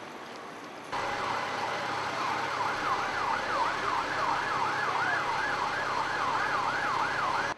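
Siren in a fast up-and-down yelp, rising and falling about three times a second, cutting in suddenly about a second in.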